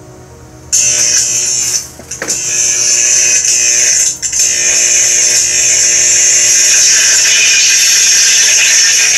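Sound effect played through a speaker by an Arduino Nano and DFPlayer Mini sound board after a reset. A loud, harsh hissing buzz cuts in suddenly about a second in, drops out briefly with a falling sweep around two seconds, and then runs on steadily.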